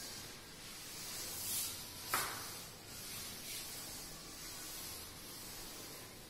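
A blackboard duster wiping chalk off a chalkboard in repeated strokes, a soft swishing hiss that swells and fades with each stroke. A single short, sharp sound about two seconds in.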